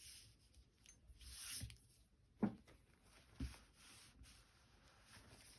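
Faint rustling and sliding of paper as a folded journal page is handled, with a light tap about two and a half seconds in and another a second later.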